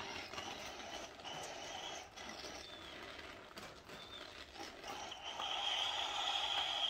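Gas torch flame hissing steadily against a clogged two-stroke saw muffler, burning the carbon out of it, with rain falling. A steady high tone comes in about five seconds in.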